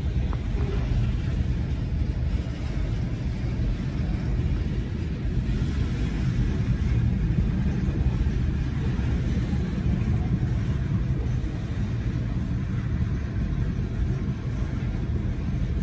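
Steady low rumble of freight-train tank cars rolling past a grade crossing, heard from inside a car's cabin.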